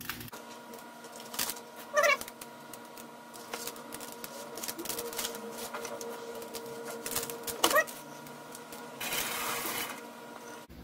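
Hands salting and rubbing a raw flank steak in an aluminium baking tray: small clicks and scrapes of salt and meat on the metal over a steady electrical hum. Two short rising high-pitched cries, about two seconds in and again near eight seconds, and a brief hiss near the end.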